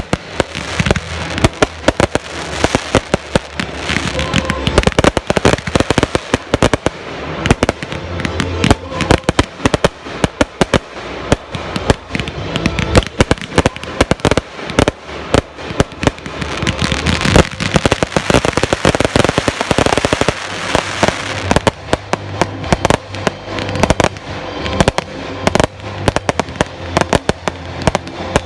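Fireworks finale barrage: a rapid, continuous stream of overlapping bangs from aerial shell bursts, with no pause.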